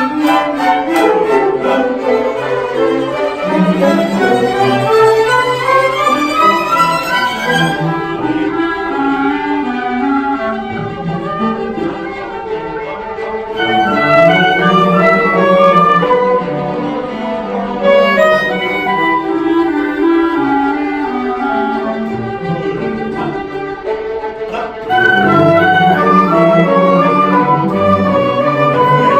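Amateur orchestra playing in rehearsal, bowed strings (violins and cellos) to the fore, with a rising run early in the passage and a louder passage near the end.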